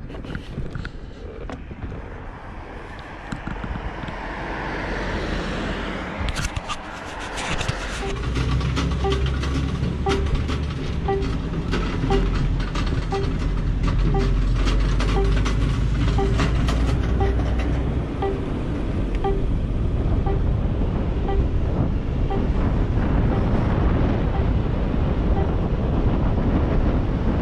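Segway E125S electric scooter ridden and accelerating to about 45 km/h, heard as wind rush on the microphone and road rumble that grow heavier about eight seconds in. A regular soft beep sounds about one and a half times a second through the middle, fading out near the end.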